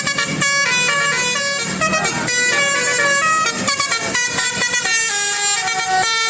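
Bus telolet horn, a multi-tone musical air horn, playing a melody of short notes that step up and down in pitch without a break.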